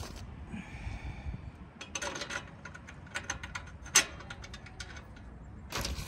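Scattered light clicks and clinks of a metal awning mounting bracket and its bolts being handled against a roof-rack rail, with one sharper knock about four seconds in.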